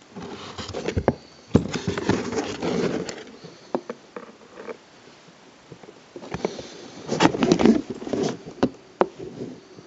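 Close handling noise from a Polaroid camera carrying case and its box: rustling and scraping with sharp clicks and taps, in two spells, one over the first three seconds and another from about six seconds in.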